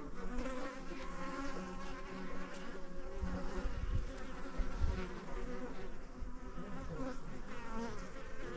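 Several bees buzzing close by as they fly around a wet tap and stones, their overlapping drones wavering up and down in pitch as they come and go.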